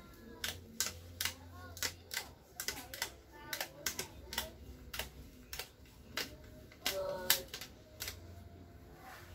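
An irregular run of sharp clicks, about two to three a second, with faint voices in the background.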